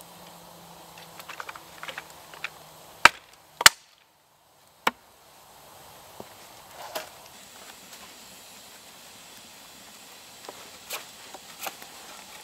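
Hatchet chopping a wooden pole on a chopping block: three sharp strikes about three to five seconds in. Faint campfire crackle underneath, and a few light clicks near the end.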